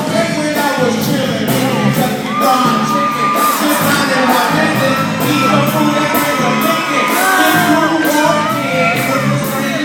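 Loud pop music with a singing voice and a steady beat, with a crowd whooping and shouting along.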